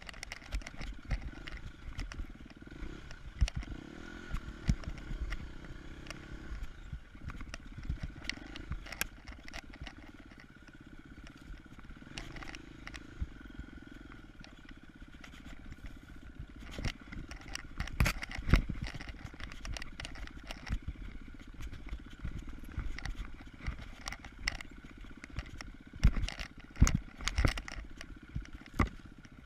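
KTM 250 EXC-F's single-cylinder four-stroke engine running as the enduro bike is ridden over rough ground, with frequent sharp knocks and clatter from the bike taking bumps. The engine eases off in the first half, and the knocks are loudest a little past the middle and again near the end.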